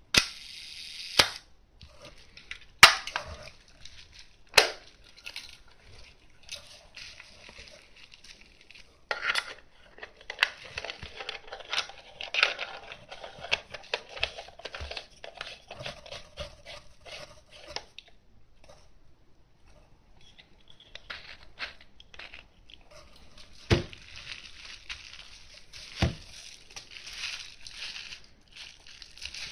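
Handling of a Canon VI-L rangefinder camera as a lens is fitted to its mount. There are sharp clicks and knocks of metal parts, four in the first five seconds and two more later on, with long stretches of crinkling from the bubble wrap and cloth beneath it.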